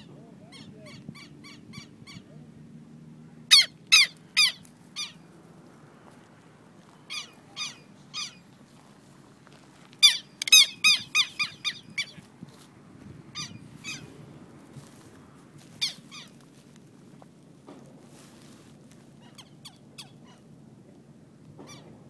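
Southern lapwings calling in alarm, loud strident notes in bursts. A quick run of fainter notes comes first, then groups of three or four calls, a run of about seven about ten seconds in, and a single call near sixteen seconds. This is the lapwing's alarm near its hidden, crouching chick.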